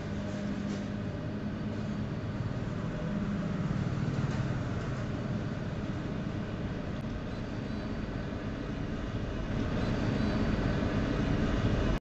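Steady low rumble and hum of background noise, swelling a little now and then, with no distinct events.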